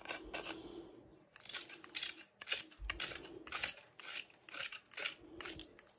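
Threaded sections of a lightweight metal broom handle being screwed together by hand, the threads squeaking and scraping in a run of short, irregular twists.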